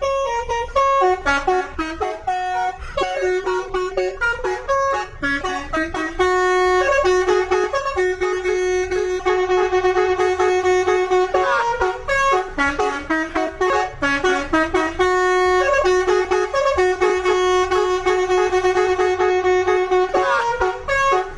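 Bus telolet horn playing a tune: long held notes broken by quick runs of short notes, continuing without a pause.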